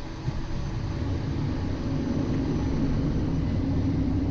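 Cessna Citation XL cockpit noise in flight on approach: a steady low rumble of airflow and engine hum, with a drone that grows slightly stronger about a second in.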